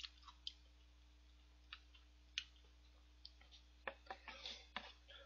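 Near silence with faint scattered clicks, then a short run of clicks and scuffing about four seconds in as a paper takeout udon bowl is handled and tipped up to the mouth.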